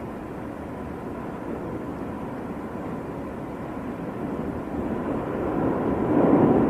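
Mount Etna's lava fountain erupting: a steady rushing noise that swells to its loudest about six seconds in, as the fountain grows.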